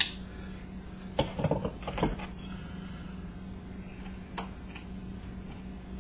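Clicks and light metallic knocks as parts of an old ceiling fan and tools are handled while a stuck part is worked at: one click at the start, a cluster about a second in, and one more near the middle. A steady low hum runs underneath.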